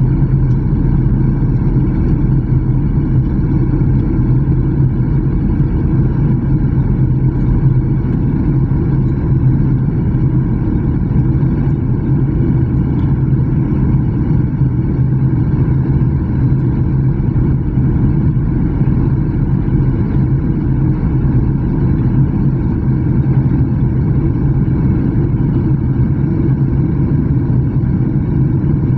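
Jet airliner cabin noise in flight: a loud, steady, low rumble of the engines and rushing air, unchanging in pitch or level.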